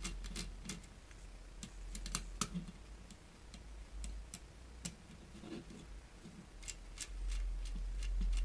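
Small sharp clicks and ticks of a screwdriver working at a screw in an electronic unit's plastic and circuit-board parts, evenly spaced at first, then scattered, over a low steady hum.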